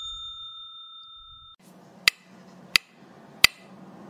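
Subscribe-animation sound effect: a bell ding rings out and cuts off suddenly about a second and a half in, then three sharp clicks follow about two-thirds of a second apart over a faint low hum.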